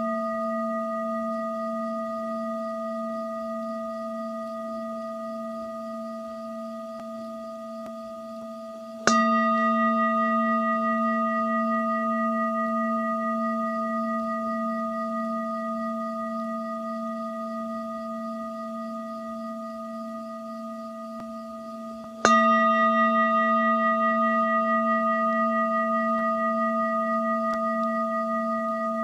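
A singing bowl rung in long, slowly fading tones with a gentle wobble, struck afresh twice, about nine seconds in and again some thirteen seconds later.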